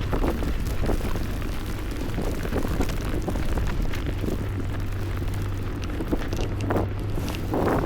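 Snowstorm wind buffeting the microphone in gusty, rumbling swells, over a steady low hum of city traffic.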